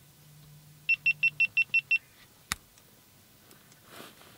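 Seven quick, evenly spaced high electronic beeps from a small device, about a second in, followed by a single sharp click, over a faint low hum.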